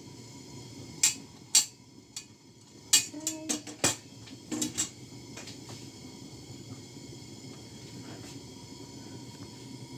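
Kitchenware clattering: several sharp clinks and knocks in the first five seconds as a stainless steel pot and its oiling brush are handled and set down, then only a faint steady hum.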